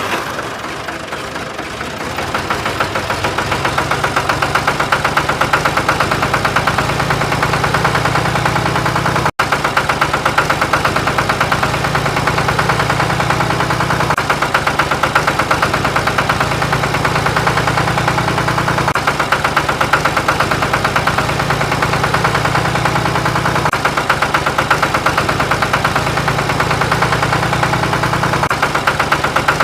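A motor running steadily with a fast, even ticking and a low hum that shifts level every few seconds, building up over the first couple of seconds, with one momentary cut about nine seconds in.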